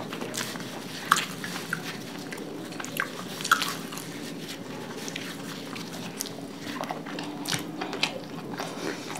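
Close-miked eating sounds of two people chewing gobi paratha (cauliflower-stuffed flatbread) and tearing pieces from it, with scattered sharp mouth clicks and smacks over a low steady hum.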